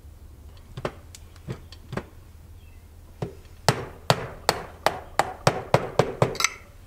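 Mallet blows on the top of a steel seat post used as a driver, pressing a crankshaft seal into a Puch ZA50 moped crankcase. A few spaced taps come first, then a quicker run of sharp knocks about three a second as the seal is driven home.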